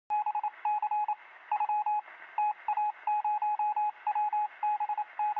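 Electronic beeps at one pitch, short and longer tones in irregular groups like Morse code, heard thin and hissy as if over a radio or telephone line.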